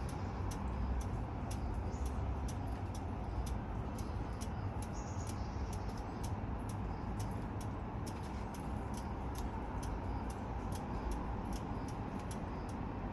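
Honda Rebel 1100's parallel-twin engine idling steadily through a cheap aftermarket muffler fitted with an inner silencer, a low even exhaust note. Light sharp ticks come two or three times a second.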